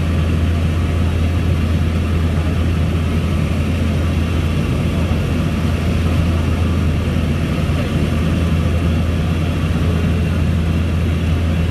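Small twin-turboprop airliner's engines and propellers heard inside the cabin in flight: a loud, steady, low drone that holds an even level throughout.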